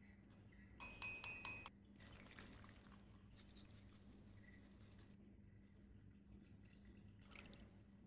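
A bamboo matcha scoop clinks about five times in quick succession against a ceramic bowl. Then a bamboo whisk brushes briskly in the bowl as matcha powder is whisked with hot water. A brief rush of pouring comes near the end.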